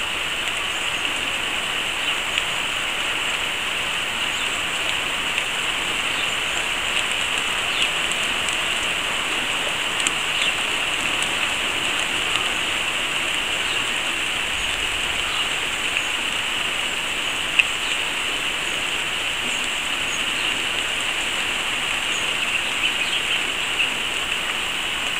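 Steady rain falling on a garden, an even hiss with a few sharper ticks of drops here and there.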